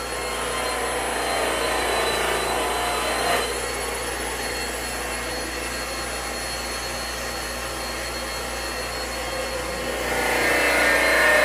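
Electric rotary polisher spinning a cloth buffing wheel against aluminum: a steady whir with a faint high whine, growing louder near the end.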